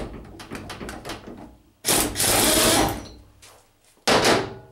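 Handheld power tool spinning bolts out of a power steering pump's back cover: one run of about a second near the middle and a shorter one near the end.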